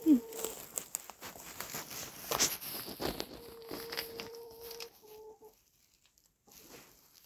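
Domestic hens calling with long, drawn-out steady notes, one at the start and another about three and a half seconds in, over footsteps crunching on frosty ground. It goes quieter for the last couple of seconds.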